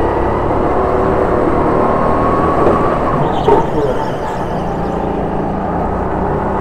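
Go-kart motor running under the onboard camera at lapping speed through tight corners, its pitch rising and falling as the driver lifts and accelerates, with a short squeal about halfway through.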